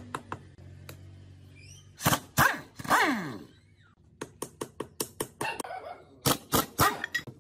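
Knocks as a mallet strikes a motorcycle engine's metal cylinder head cover, with a handheld power driver working on the cover bolts. Loud hits come about two seconds in and again near the end, with a row of quick clicks between them.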